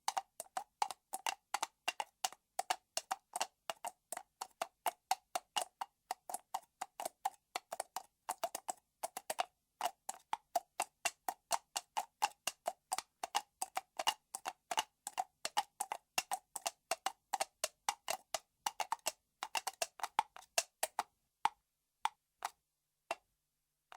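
Empty aluminium soda can being clicked and tapped in quick succession, each click carrying a short metallic ring from the can. The clicks thin out and stop near the end.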